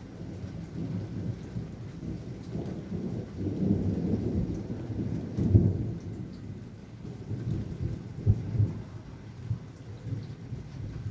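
Thunder rolling low over steady rain. The rumble builds to its loudest with a sharp clap a little past halfway, gives a second crack about three-quarters through, then eases off.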